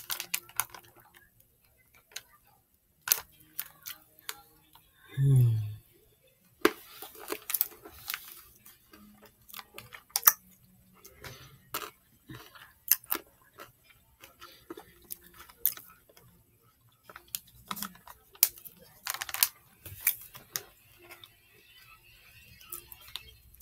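Close-up chewing of milk chocolate with almonds: irregular crunching and small clicks as the almonds break between the teeth. About five seconds in there is a short hum of the voice.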